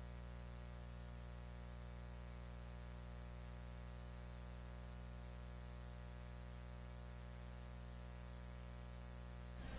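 Steady electrical mains hum with a buzzy edge, alone on the audio line with no arena sound, until mixed sound returns near the end.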